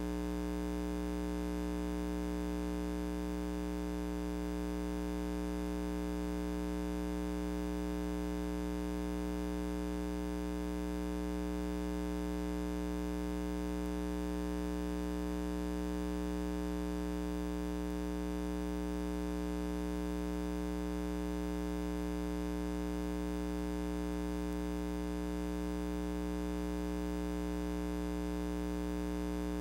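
Steady electrical mains hum: a low buzz that never changes.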